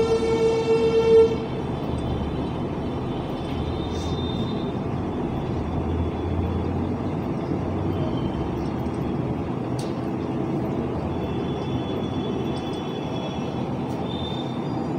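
A horn toots once for about a second and a half at the start, followed by steady traffic noise.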